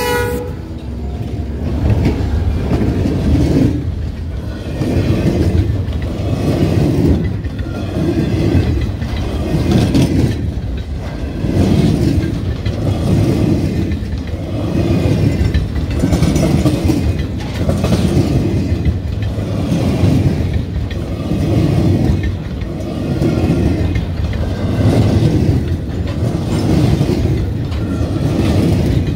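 Freight train of loaded log flatcars rolling past at close range, the wheels clattering over rail joints in a regular rhythm of surges a little over a second apart. A horn blast cuts off right at the start.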